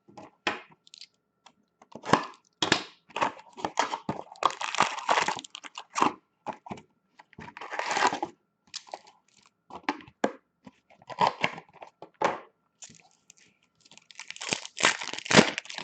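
A sealed hockey card box and its card-pack wrappers being torn open by hand: irregular bursts of tearing, crinkling plastic and crackling cardboard.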